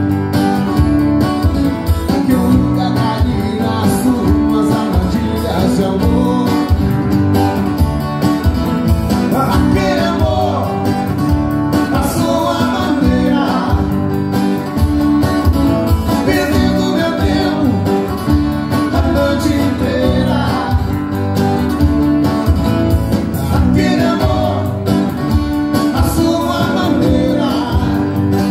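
Live acoustic duo: two steel-string acoustic guitars strummed with male singing, amplified through the venue's PA speakers and heard in the room.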